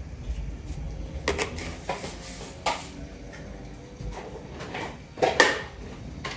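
Kitchen handling noises while cooking: a handful of separate knocks and clatters of containers and utensils, some ringing briefly. The loudest come in a quick pair about five seconds in.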